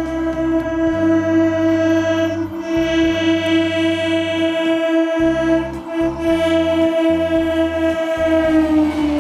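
Electric multiple unit (EMU) local train sounding its horn in one long held blast as it approaches and passes, with a brief dip about two and a half seconds in. The pitch drops slightly near the end as the train goes by.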